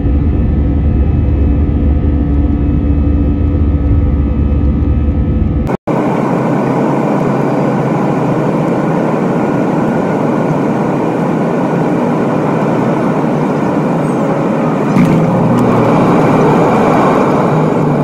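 Jet airliner engines and rushing air heard loud inside the cabin. For the first six seconds there is a deep, steady hum with a few held tones. After a brief cut it gives way to a broader, even rushing noise.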